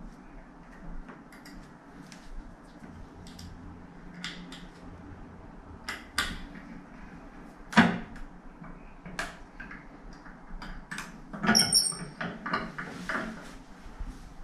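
Small metallic clicks and taps from a chrome toilet roll holder and an Allen key being handled as the holder is fixed to its wall plate, with a sharper knock about eight seconds in and a brief ringing clink of metal near twelve seconds.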